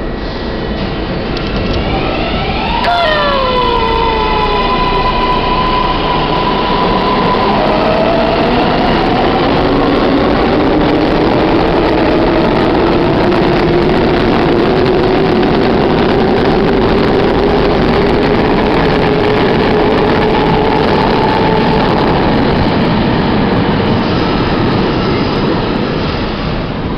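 New York City subway train pulling away and running between stations: the electric traction motors whine in stacked tones that climb, step down sharply about three seconds in, then rise slowly as the train gathers speed over steady wheel-and-rail running noise.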